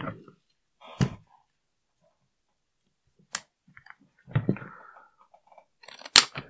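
AR-15-style rifle being handled and taken apart: scattered knocks and metallic clicks as it is set on its rest and its takedown pins are pushed out, the sharpest click near the end.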